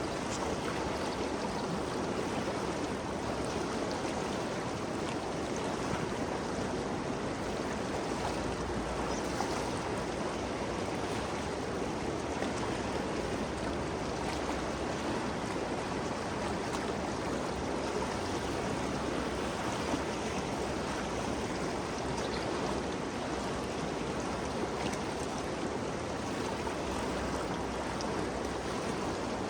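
The Ganges River flowing, a steady rushing of water with no pauses or separate splashes.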